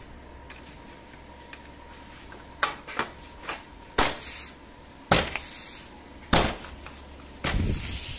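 A clip-on L-shaped corner cover being pressed and snapped onto a metal cubicle partition post by hand: a string of about six sharp clicks and knocks, then a short scraping rub near the end.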